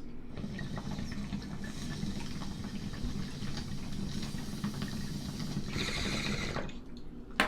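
Water bong bubbling steadily as smoke is drawn through it, with a louder hiss of air about six seconds in.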